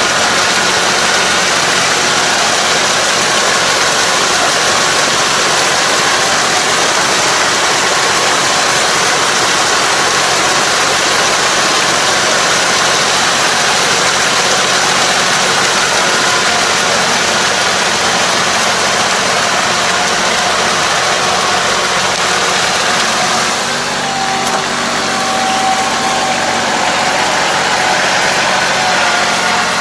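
Kubota KL270 tractor's diesel engine running steadily under load as it pulls a rotary drive harrow through a flooded rice paddy, with the harrow churning the muddy water.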